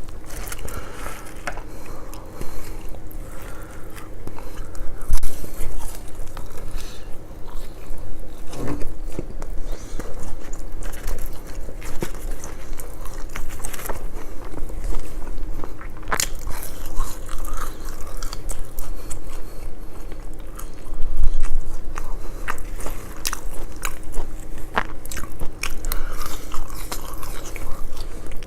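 Close-miked eating of fish and chips: crunching bites and chewing, with many sharp crackles at irregular intervals and a couple of louder bites.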